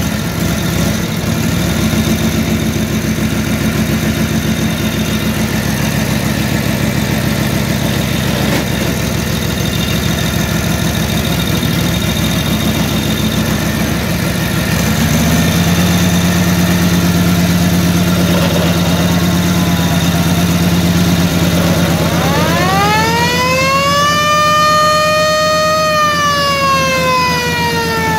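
The 1942 Harley-Davidson WLA's flathead V-twin runs steadily. A WW2 siren fitted to the bike winds up about three quarters of the way in, its wail rising, holding, then falling away near the end.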